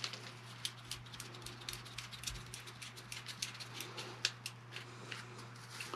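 Black plastic top handle being twisted onto a stainless steel toilet brush handle tube: a run of small, quick, irregular clicks and scrapes from the parts turning together, over a faint steady low hum.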